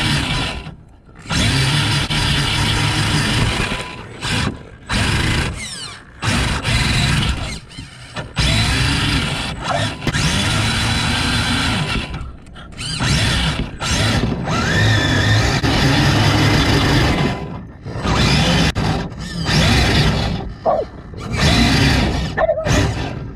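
Gen8 RC rock crawler's electric motor and geared drivetrain whining and grinding close to the mic, which rides on the truck. It starts and stops repeatedly, with short pauses between bursts of driving.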